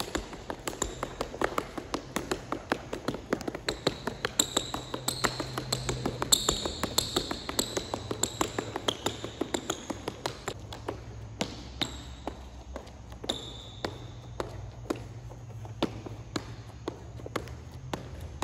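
Quick footsteps of basketball sneakers tapping on tiled court flooring through an agility ladder drill, fast and dense for the first ten seconds or so, then sparser, with short high sneaker squeaks in between. A low steady hum runs underneath.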